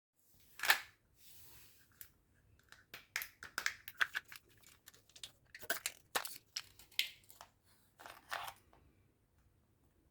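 Packaging being handled and opened by hand: irregular rustles, short tearing sounds and sharp clicks, the loudest a sharp snap near the start.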